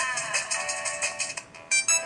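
Polyphonic ringtone playing through the Samsung SGH-i560 phone's small loudspeaker: quick repeated synth notes with no bass, opening with a falling sweep. About one and a half seconds in, the sound drops briefly, then a louder, different pattern of notes starts.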